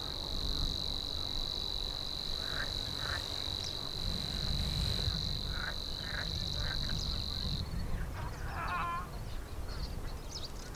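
Savi's warbler singing its long, even reeling song, one unbroken buzz that stops abruptly about seven and a half seconds in.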